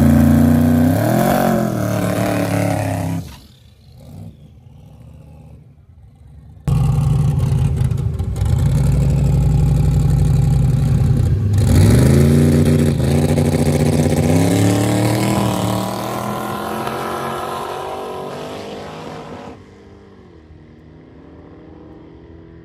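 Twin-turbo 427 LS V8 in a small-tire drag Camaro: it revs up in the burnout, then holds at a steady pitch on the two-step rev limiter. It launches about 12 seconds in and accelerates away down the track, fading into the distance. It runs rough on the two-step and off the line, which the driver puts down to plugs that still need cleaning.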